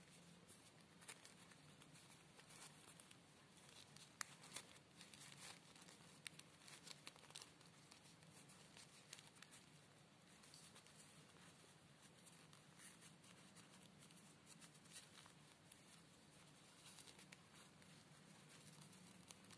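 Faint rustling of fabric and soft scattered clicks as small corduroy pants are worked onto the legs of a mini ball-jointed doll, over a low steady hum.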